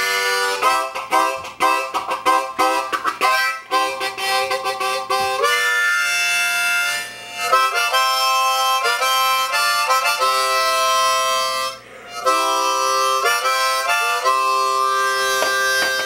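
Harmonica played in chords, with quick choppy notes for the first few seconds, then longer held chords and a short break about two-thirds of the way through.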